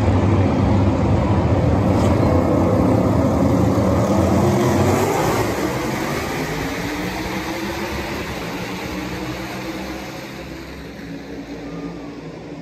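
A pack of NASCAR Cup Series stock cars' V8 engines at full throttle, taking the green flag and passing close by. The engine sound is loudest for the first five seconds, then fades steadily with shifting pitch as the field moves away around the track.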